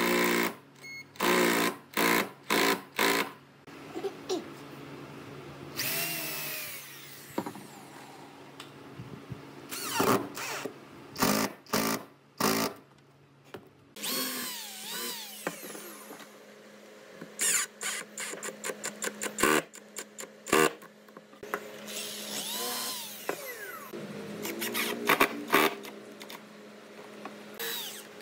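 Hand-held power drill run in short bursts, drilling holes into wood. Its motor speeds up and slows with each squeeze of the trigger. The bursts come in quick series, with a few longer runs.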